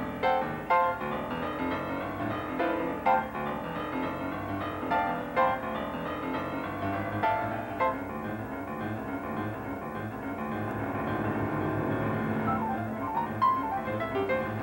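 Jazz played live on a grand piano in quick runs and chords, with an upright double bass plucking a line underneath.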